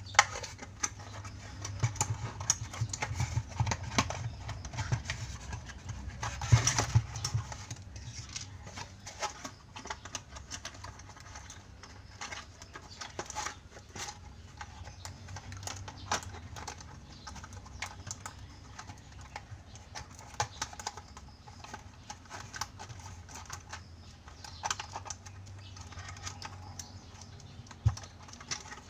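Hands handling a small plastic toy and its packaging, making irregular light plastic clicks, taps and rustles.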